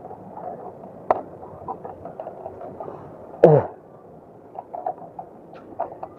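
Scrapes and small knocks of a person climbing over an obstacle, with a sharp click about a second in and one loud, short low sound about three and a half seconds in.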